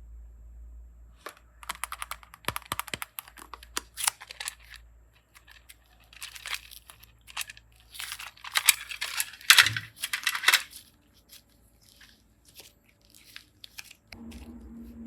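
Slime being handled and pulled apart, crackling and clicking in irregular bursts, loudest about two-thirds of the way through and sparser near the end.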